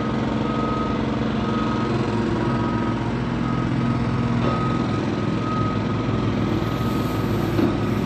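Heavy construction vehicle's diesel engine running steadily while its reversing alarm beeps over and over, the sign of a truck backing up on the site. The beeping fades in the later part.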